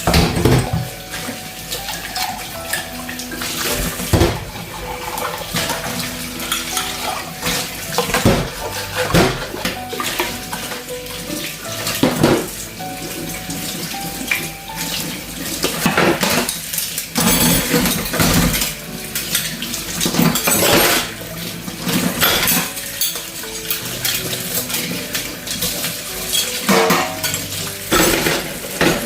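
Washing up at a kitchen sink: dishes, pots and cutlery clinking and clattering against each other, with tap water running.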